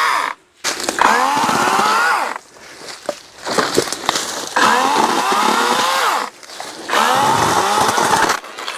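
Cordless 40-volt electric chainsaw running in separate bursts of a few seconds as the trigger is squeezed and let go, its motor whine rising in pitch as it spins up at each start, while cutting brush. The last burst stops near the end.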